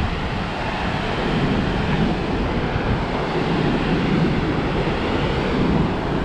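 The 84-metre Montmorency Falls makes a steady, rushing roar of falling water, deep and unbroken.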